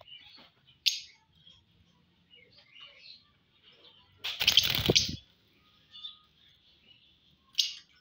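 Pet budgerigars chirping and chattering in a cage: soft, scattered chirps, with sharp louder chirps about a second in and near the end. A loud rustling burst about four seconds in lasts under a second and is the loudest sound.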